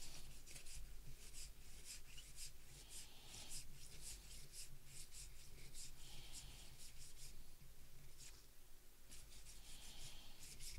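Baseball cards being thumbed through by hand, card after card slid off a stack: a faint, irregular run of papery scrapes and flicks of card stock, over a low steady hum.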